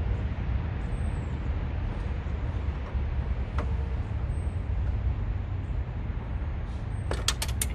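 Steady low rumble of highway traffic, with one sharp click about three and a half seconds in and a quick run of sharp clicks near the end.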